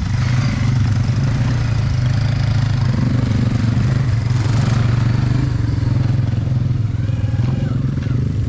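Engine of an off-road vehicle running steadily, a loud continuous low hum with no sharp revs.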